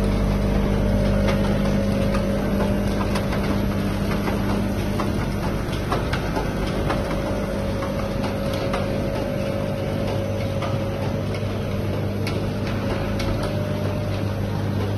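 Automatic pouch packing line running: a steady machine hum with a few held tones, broken by frequent small clicks and knocks from the moving parts.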